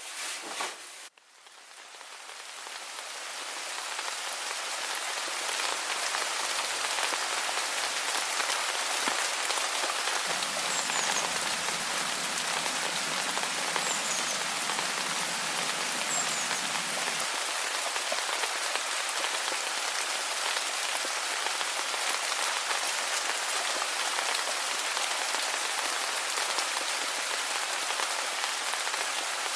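Steady rain falling, fading in over the first few seconds after a cut. A few faint, short high chirps come through near the middle.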